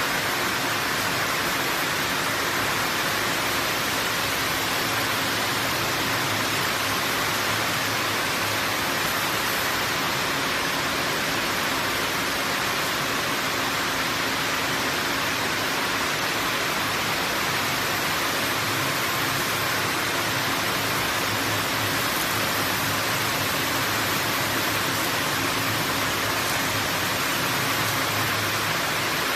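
A multi-spindle PP raffia yarn winding machine running: a steady, even hiss of many winding heads turning together, with a faint low hum underneath.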